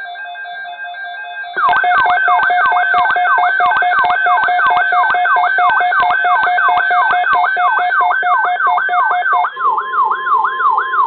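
Loud emergency alert alarm tones: a steady two-note tone, then a siren-like wail of fast falling sweeps, about three a second, over a steady lower tone with evenly spaced clicks. Near the end the sweeps slow a little and a single steady tone replaces the lower one.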